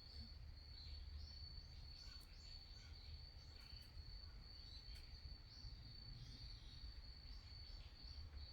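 Faint outdoor ambience: a steady, high, unbroken insect trill, with scattered short bird chirps and a low rumble underneath.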